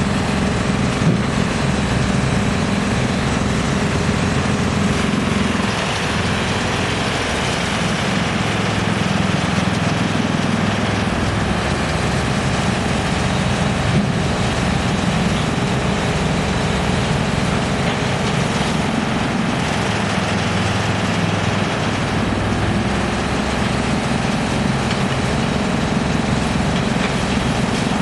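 GX2113 drum wood chipper running with a steady, loud mechanical noise over a low hum.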